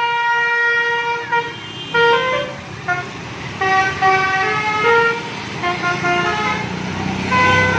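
Bus telolet musical air horn playing a tune of short notes that step up and down in pitch, with a brief pause partway through. The bus's engine runs with a low hum underneath.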